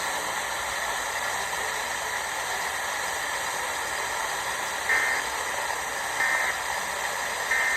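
Steady static hiss from a broadcast receiver, then, about five seconds in, three short bursts of Emergency Alert System digital data tones, evenly spaced a little over a second apart: the end-of-message code that closes the test alert.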